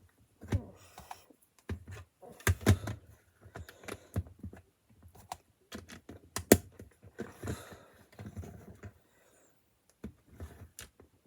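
Plastic LEGO bricks being handled, with irregular sharp clicks and clatter and some rustling between them; the loudest clicks come about two and a half and six and a half seconds in.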